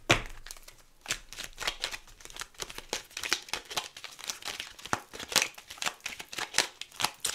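A deck of tarot cards being shuffled by hand: a quick, irregular run of crisp card clicks and flicks, starting about a second in.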